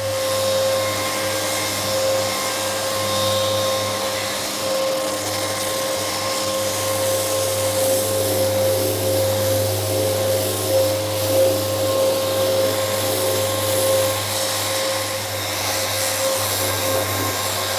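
Festool Rotex RO 125 FEQ random orbital sander with 60-grit paper running against a fiberglassed kayak hull, its dust-extraction vacuum drawing air through the hose. A steady whine over a low hum.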